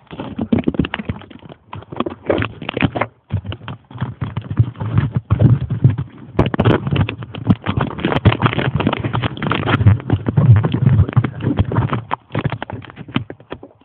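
Handling noise on a phone's microphone: a dense run of irregular knocks, scrapes and rubbing as the phone is fixed to a model plane and moved around. There is no steady motor tone.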